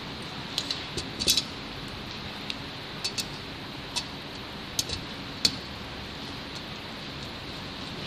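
Small metal parts and tools clicking and tapping against aluminium brackets and carbon-fibre frame plates during hand assembly: about a dozen sharp, irregular clicks over the first five and a half seconds, over a steady background hiss.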